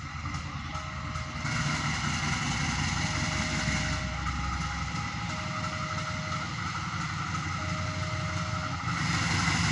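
Diesel locomotive engine running with a steady, deep note, growing louder about nine seconds in. A faint tone comes and goes in spells of about a second.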